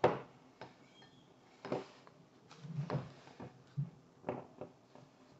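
Scattered light knocks and clicks of tableware being handled and set down on a glass tabletop: a ceramic mug and a utensil, about eight short sharp sounds at irregular intervals.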